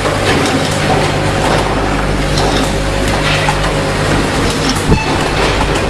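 Two-colour pneumatic pad printing machine running through its cycle: air cylinders clicking and hissing, with a sharp knock about five seconds in, over a steady mechanical hum.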